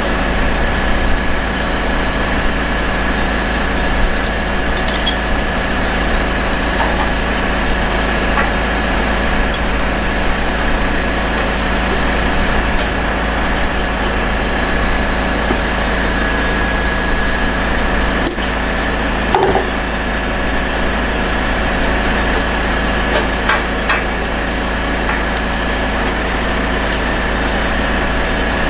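Heavy diesel engine idling steadily, with a steady whine over the hum. A few short metallic knocks and clinks from chain lashings being handled break in, the clearest two together a little past halfway.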